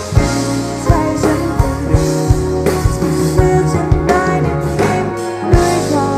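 Background music with a steady beat and a pitched melody over bass.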